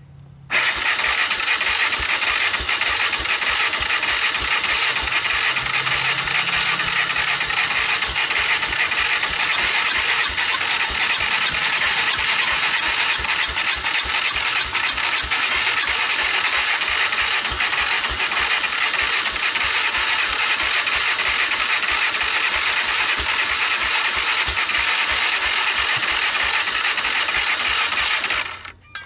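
Honda TRX300EX single-cylinder four-stroke engine being turned over on its electric starter with starting fluid, a steady churning crank with rapid, even pulses that does not catch. Its low compression, about 35 PSI dry, keeps it from firing. The sound begins about half a second in and cuts off sharply just before the end.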